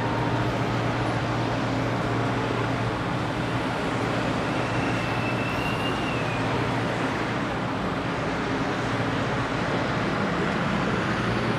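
Steady city street traffic: passing cars and other vehicles, with a steady low engine hum underneath. A faint, brief high tone comes in about five seconds in.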